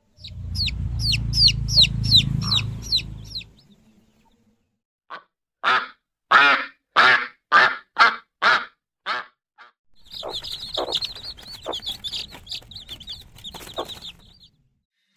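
Poultry calling in three stretches. First comes a quick run of high chirps over a low rumble. Next, about eight loud calls in an even series, a little over half a second apart. Last, a dense chatter of high peeps.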